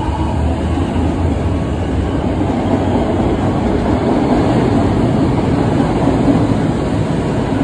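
Kobe Municipal Subway train running past close by along an underground platform: a steady low rumble of wheels on rail.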